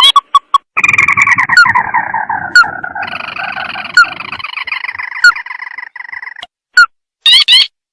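Recorded crake lure call played loud: a few short, sharp rising notes, then about a second in a long churring, chattering trill that drifts slightly down over about five seconds with single rising notes cutting across it, before the quick sharp notes start again near the end.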